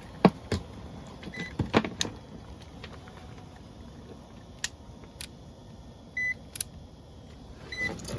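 Sharp clicks and knocks of a clamp-on amp meter and equipment being handled while checking heat-strip amp draw, with three short high electronic beeps, the loudest about six seconds in.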